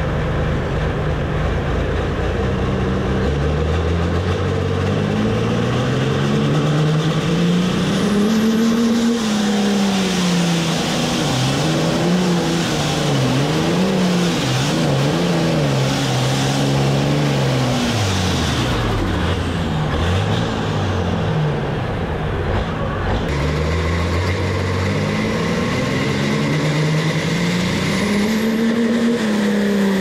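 International Harvester 1066 pulling tractor's straight-piped diesel engine working under load on a pull. Its pitch climbs steadily over the first several seconds, then rises and falls again and again as the throttle is worked. A little over two-thirds of the way through, the sound changes abruptly and the engine climbs once more.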